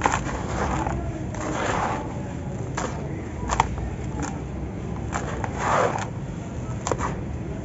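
Hands scooping and crumbling gritty sand and small gravel in a plastic tub: a crunching, pouring hiss as it falls back, twice swelling longer, with several sharp ticks of pebbles.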